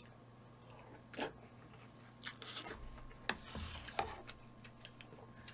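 Quiet eating sounds: a few light clicks of utensils against dishes, with faint rubbing and chewing in between.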